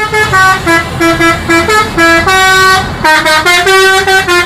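Multi-tone bus horn, an Indonesian 'telolet' horn, playing a quick melody. It runs through a string of short notes at changing pitches, with a few longer held notes.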